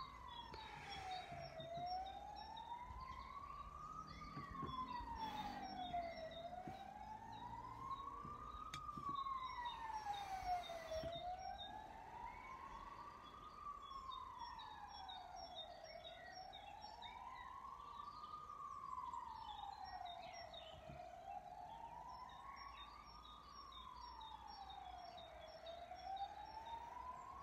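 Faint emergency-vehicle siren in a slow wail, rising and falling steadily about once every four and a half seconds.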